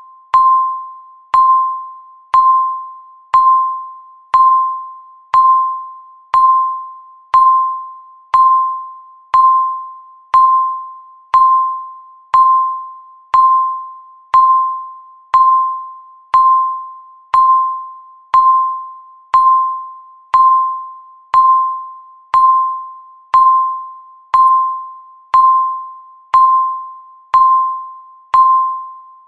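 Countdown timer's ticking sound: a sharp, ringing electronic ding, one a second and evenly spaced, each fading away before the next.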